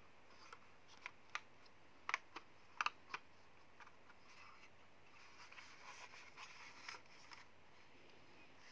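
Small plastic clicks and taps from a drone's handheld remote controller being handled, thumbs on its sticks and buttons; several sharp clicks in the first three seconds, then softer rustling as it is turned over in the hands.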